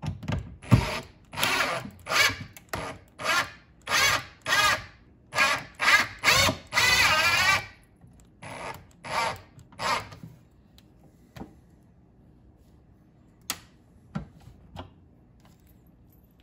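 Cordless drill run in about a dozen short bursts, its motor pitch wavering under load, with one longer run partway through, as it drives into the base of a fishfinder mount. A few separate sharp clicks follow near the end.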